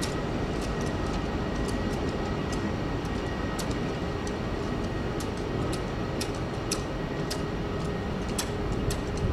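Jet engines of an easyJet Airbus A320-family airliner running at taxi power: a steady rumble with a faint high whine. Irregular sharp ticks sound throughout.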